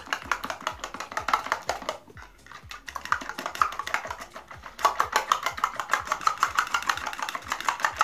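A spoon beating eggs in a bowl, clicking against the bowl in quick, even strokes. The beating eases off briefly about two seconds in, then picks up louder from about five seconds in.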